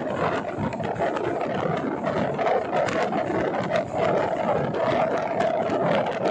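LHB passenger coach running along the track: a steady wheel-on-rail running noise with many small clicks and knocks.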